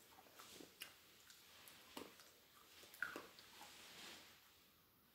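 Faint crunching of Smarties candy tablets being bitten and chewed: a few soft, separate crunches.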